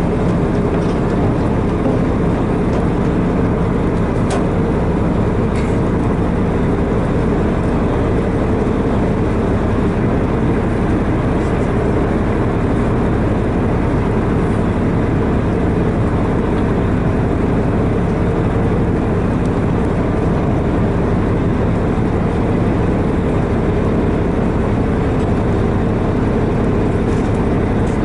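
Boat engine running steadily, a constant low hum with engine noise beneath it.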